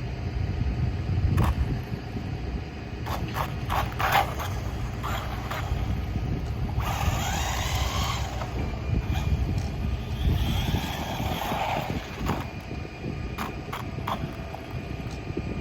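A 1/16-scale brushless RC jeep running on a 2S lipo, its motor whining up and falling back as it speeds up and slows on the street, about seven seconds in and again around ten to twelve seconds. Under it runs a steady low rumble of wind and road noise, with scattered clicks and knocks.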